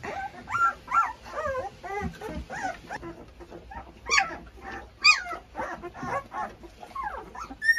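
Litter of 13-day-old Presa Canario puppies whining and squealing: many short, high calls that rise and fall, overlapping one after another, the cries of hungry puppies wanting to nurse.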